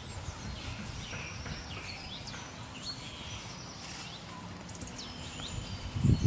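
Small birds chirping and calling over and over over a faint low outdoor rumble, with a louder low rustling starting just before the end.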